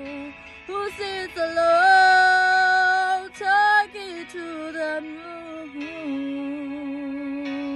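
A young woman singing unaccompanied, holding long vowel notes with no clear words and sliding between pitches: a loud, long high note about two seconds in, then softer, lower held notes.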